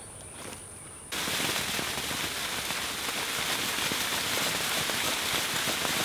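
Mulberry tree branches shaken hard: a rapid pattering and rustling of leaves, with ripe mulberries raining down onto a plastic sheet spread beneath. It starts suddenly about a second in and runs steadily after that.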